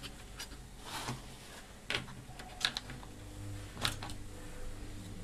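Sharp plastic clicks and taps of a DVD player's loader mechanism being handled and pressed into its bay in the chassis, about half a dozen irregular clicks roughly a second apart.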